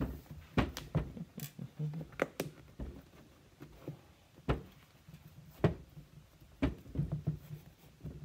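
Hands lacing and tying a figure skate boot, handling it on a workbench: scattered, irregular knocks and taps with faint rustling between them.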